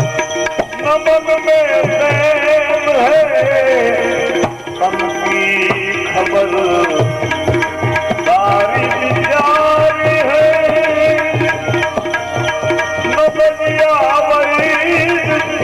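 Devotional bhajan music: tabla playing a steady rhythm under a melody with sliding, wavering notes.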